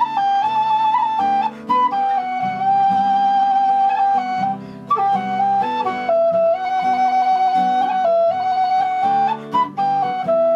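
Tin whistle playing a slow folk melody of long held notes with quick grace-note flicks, over strummed acoustic guitar chords.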